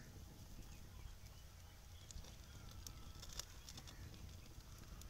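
Near silence: faint outdoor background with a steady low rumble and a few faint ticks.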